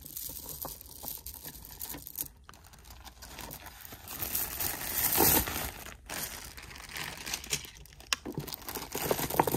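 Clear plastic zip-top bag crinkling as it is handled, with irregular crackles that grow louder about four to five seconds in.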